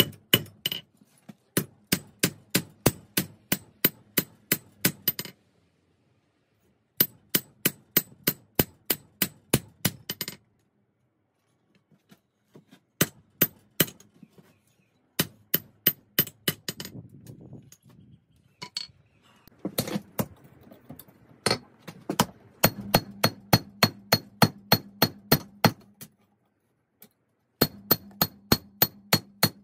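Hand hammer forging 5160 spring steel on an anvil: runs of quick, ringing metal-on-metal blows at about three a second, broken by several short silences.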